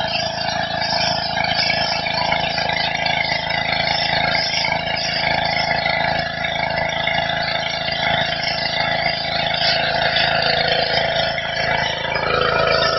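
Petrol-engined high-pressure washer running steadily, its engine hum under the hiss of the water jet blasting the patio stones. The engine note changes near the end.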